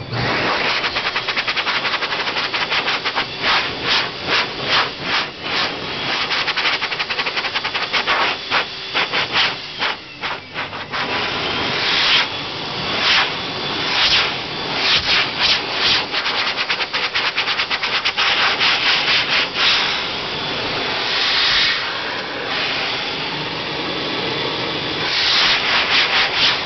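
Electric hand dryer blowing, its air stream chopped and muffled by hands moving in front of and over the nozzle: a loud rush of air broken by rapid dropouts and surges in an uneven, rhythmic pattern.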